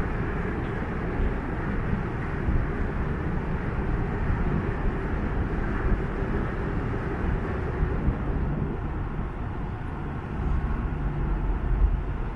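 Large passenger ferry manoeuvring alongside a pier: its engines and churning propeller wash make a steady low rumble with a rushing noise over it, swelling a little near the end.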